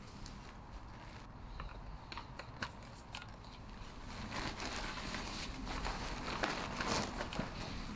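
Rustling and crinkling of a bag being handled, with scattered small clicks, getting busier and louder about halfway through.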